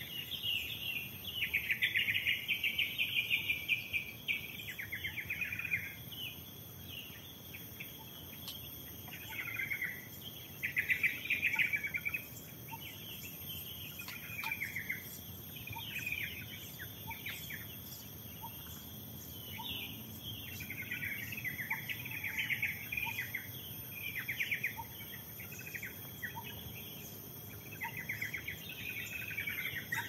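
Several wild birds chirping and singing in quick, repeated phrases, loudest in the first few seconds and again about a third of the way through, over a steady high-pitched insect drone.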